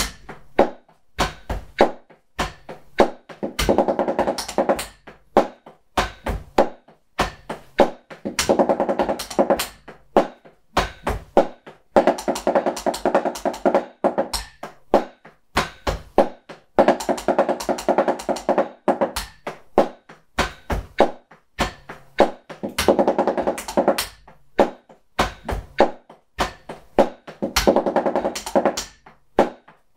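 Drumsticks playing fast sextuplet phrases on a drum practice pad muffled by a towel laid over it, giving soft, deadened taps. Dense runs of rapid strokes about two seconds long alternate with sparser single strokes, roughly every five seconds.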